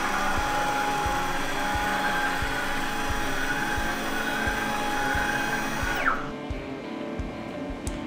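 NEMA 23 stepper motors driving a CNC router's ball screws in a long move. There is a whine that rises quickly as the axis speeds up, holds for about six seconds with a wavering upper tone, then drops off quickly as the axis stops. Background music with a beat runs underneath.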